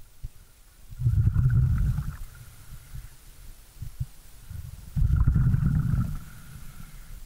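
Scuba diver breathing out through a regulator underwater: two bursts of rumbling exhaust bubbles, about a second in and again about five seconds in, each over a second long.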